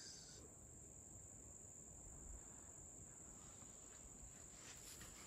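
Faint, steady high-pitched trilling of crickets, with a few soft rustles near the end.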